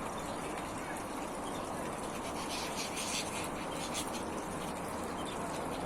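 Small artificial waterfall and fountain trickling steadily over a rock, with a few brief high sounds about halfway through.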